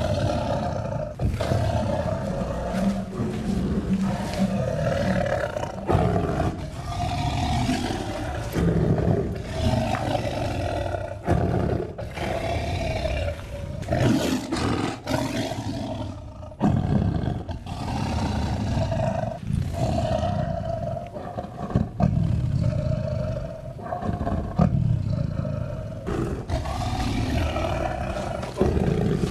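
Tiger roaring over and over, a long run of loud roars and growls joined by abrupt cuts, put together as a sound effect of a Javan tiger.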